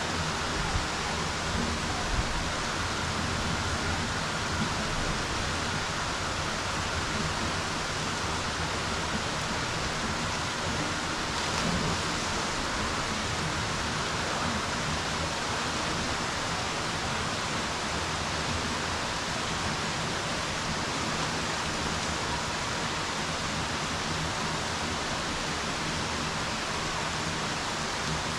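Steady rain falling on the water of a swimming pool, an even patter of drops that keeps on without a break.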